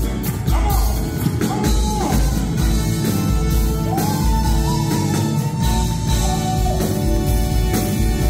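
Live band music with a drum kit and a male singer, who holds one long note in the middle, while the audience claps along to the beat.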